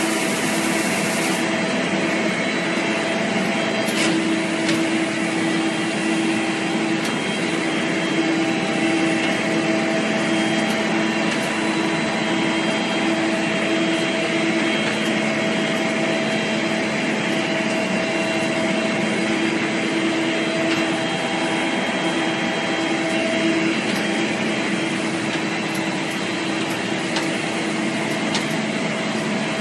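Polystyrene foam sheet extrusion line running: a steady machine hum with a few held tones over a continuous hiss.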